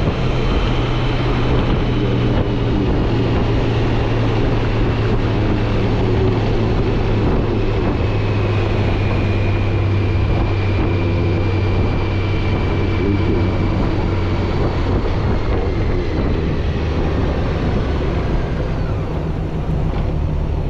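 Motorcycle running at road speed: a steady engine drone with wind rushing over the microphone. The engine note drops a little about a third of the way in.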